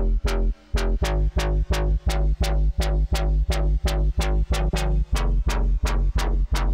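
Bass house synth patch playing in Reveal Sound Spire: a saw-based, FM'd bass in a steady pulse of sharp-edged notes about three a second, over a sustained deep sub. The pitch steps down about a second in, after a short break.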